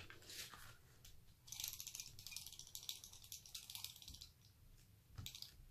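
Faint fine crackling rasp of a tape pen laying double-sided adhesive tape along the edge of a card panel, lasting about two and a half seconds from about a second and a half in, with light card-handling noises around it.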